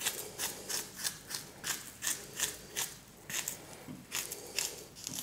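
Kitchen knife slicing a banana held in the hand, a steady run of short cuts about three a second.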